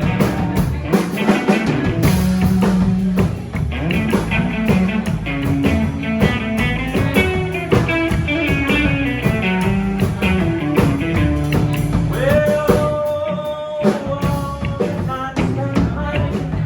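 Live blues-flavoured rock-and-roll band playing an instrumental break: a lead guitar picks out a melody over bass and a steady drum beat, holding one long note about three-quarters of the way through.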